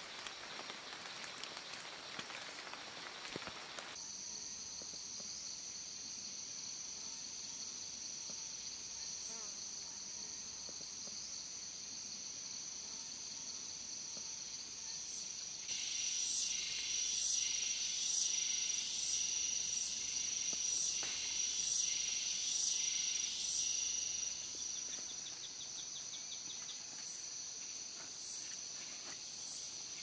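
Forest insects keeping up a steady high-pitched shrill. About 16 seconds in, a louder insect call joins, pulsing about one and a half times a second for around eight seconds before the steady shrill carries on alone. For the first few seconds an even hiss lies over it and cuts off suddenly.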